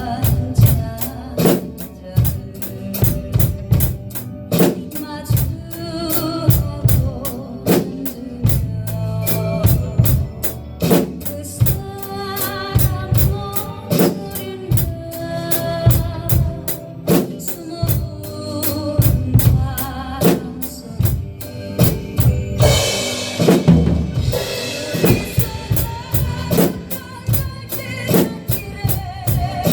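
Drum kit played along to a recorded ballad's instrumental break: a steady beat of bass drum and snare with rim clicks over the song's backing band, and a cymbal crash ringing out about three-quarters of the way through.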